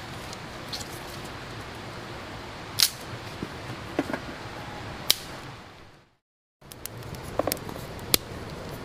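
A few sharp snaps and clicks over a steady outdoor background noise while a campfire is being lit. The sound cuts out to silence for about half a second roughly six seconds in.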